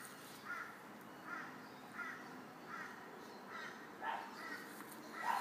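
A bird calling over and over, a short call about every three-quarters of a second, with a louder call just before the end.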